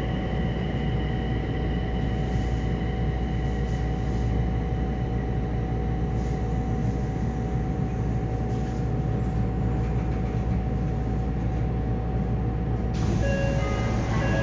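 Running noise of a Yokohama Municipal Subway 4000-series train heard inside the car: a steady rumble of wheels on rail with a steady whine from its Mitsubishi hybrid SiC VVVF inverter and traction motors. About a second before the end, a chime starts, the lead-in to an onboard announcement.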